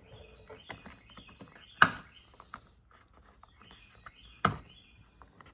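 Plastic car-door sail panel being pried off: the trim squeaks and creaks with small clicks, and two sharp snaps come about 1.8 and 4.5 seconds in, the first the loudest, as its clips give way.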